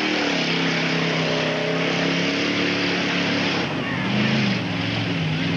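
A mud-bog race car's engine running hard at high revs as it drives through a mud pit. Its pitch dips and rises again about four seconds in.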